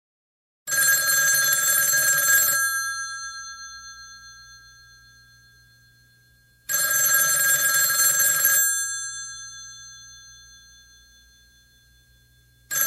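Telephone bell ringing in the classic pattern: about two seconds of ringing, then a pause of about four seconds, twice, with a third ring starting at the very end. After each ring the bell's tone fades away slowly.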